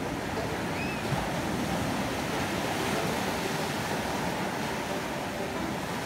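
Ocean surf: small waves breaking and washing up the beach in a steady rush.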